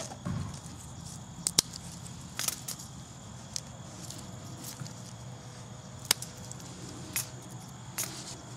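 Sticks of wood dropped by hand into a stainless steel Bushbox XL stove, knocking and clattering against the steel in several sharp, separate clicks.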